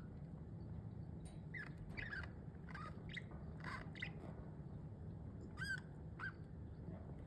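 Pet budgerigars giving short, scattered chirps and squawks, the loudest about two-thirds of the way through, over a low steady hum.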